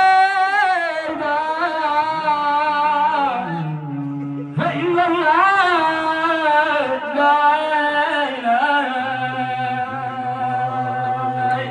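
Solo male voice singing a drawn-out, ornamented Sufi dhikr chant into a microphone, in two long phrases with a short break about four seconds in. A low steady note is held under the end of each phrase.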